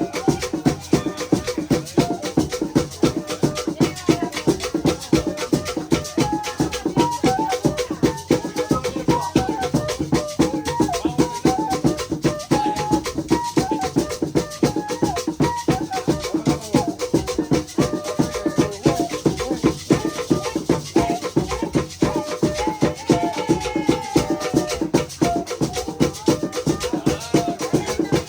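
Rhythmic percussion music: shaken rattles and drum beats in a fast, even pulse, with a stepping melody line above them.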